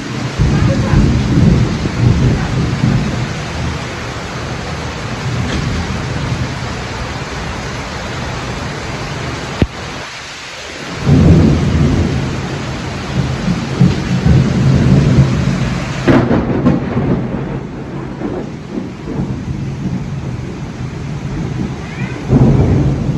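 Heavy rain pouring steadily, with rolling thunder rumbling underneath in several waves, strongest near the start, from about eleven seconds in, and again near the end.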